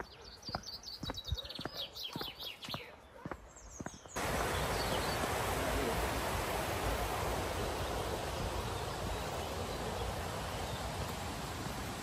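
Footsteps on a path with birds singing. About four seconds in, this cuts suddenly to the louder, steady rush of a fast-flowing woodland stream.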